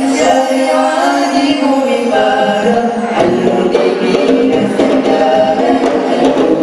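Male nasyid vocal group singing a Malay religious song in close harmony, largely a cappella, the voices holding and moving through sustained chords.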